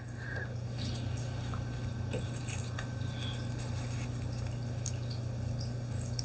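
Playing cards being handled, giving faint scattered light ticks and rustles, over a steady low hum.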